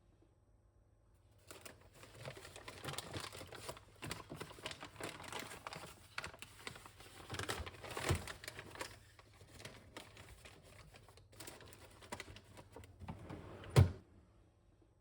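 Household items and packaging being handled: a run of rustles and small clicks and taps, ending in one sharp knock near the end.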